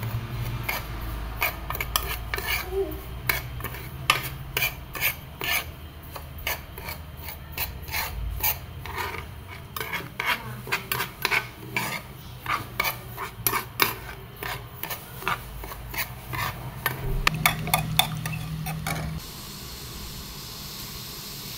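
Metal spoon stirring and scraping coarse semolina as it dry-roasts in a metal pan: a quick, uneven run of scrapes and clicks. About nineteen seconds in, the scraping stops and a steady hiss takes over.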